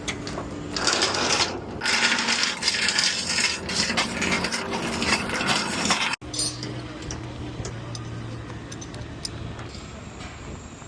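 Loud, irregular metallic rattling and clinking for about six seconds, then an abrupt cut to a quieter, steady low engine-like hum.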